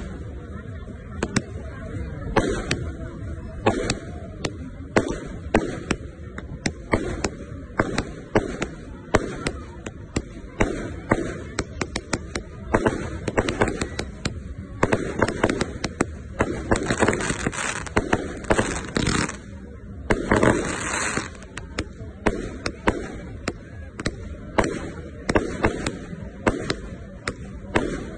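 A 100-shot firework cake firing in quick succession: an irregular string of sharp launch thumps and aerial bangs, several a second, without a break.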